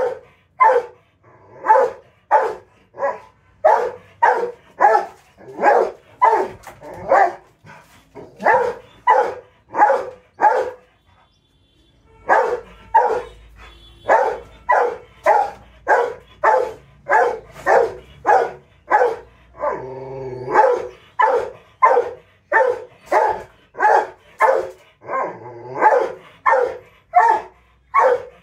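Rottweiler barking over and over, about two barks a second, with a short break about eleven seconds in and one longer drawn-out sound partway through the second run.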